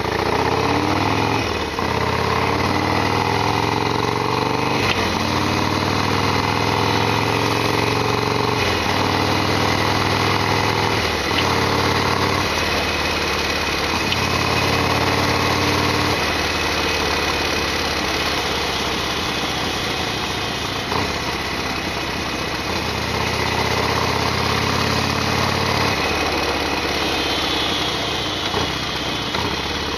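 Harley-Davidson Sportster XL1200R's air-cooled V-twin running under way, its note changing several times in the first dozen seconds, as at gear changes, then holding steadier.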